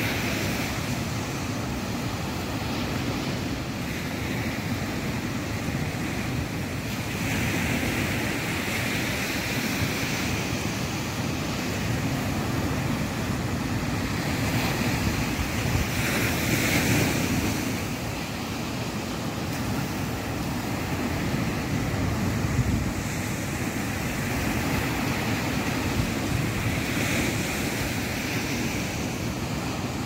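Ocean surf breaking and washing up a sandy beach: a continuous wash that swells and fades every several seconds, with the biggest surge about halfway through.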